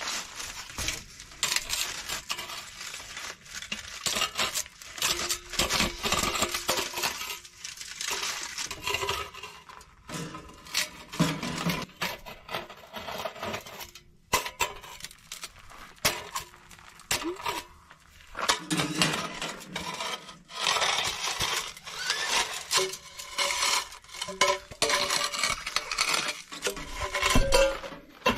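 Stainless steel stovepipe of a tent wood stove being taken down and handled: repeated metallic scrapes and clinks of the tube sections, with brief ringing.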